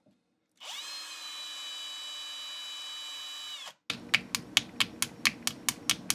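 Cordless drill with a length of wire in its chuck spinning up, running with a steady whine for about three seconds, then winding down. After that comes a quick, even run of light clicks, about four a second, as the wire is worked at the lure with needle-nose pliers.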